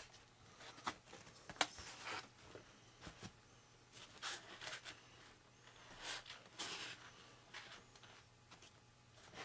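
Foam pieces of a model wing being handled and pressed into place, rubbing and crackling faintly in short scattered strokes, with a couple of sharp clicks about a second and a second and a half in.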